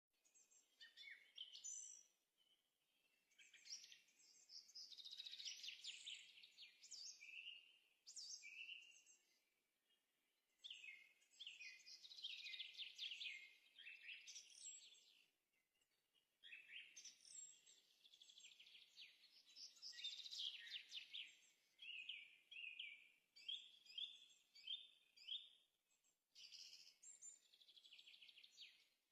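Faint birdsong: chirping and trilling phrases with quick pitch sweeps, coming in bursts separated by short pauses.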